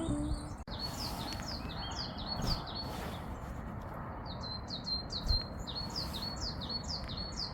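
Small songbird calling in quick series of short, high notes, each falling in pitch, several a second, in two runs with a brief pause between them, over a steady background hiss.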